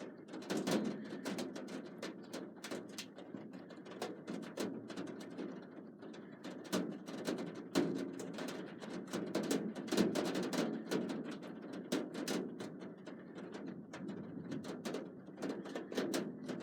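Thunderstorm ambience: irregular sharp taps of raindrops striking something close by, several a second, over a low rumbling wash that swells and fades.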